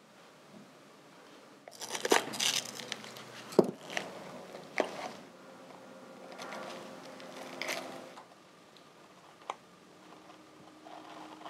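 Masking being picked and peeled off a freshly painted motorcycle brake master cylinder: crinkling and tearing in irregular bursts with a few sharp clicks of the blade against the metal body, busiest between about two and eight seconds in.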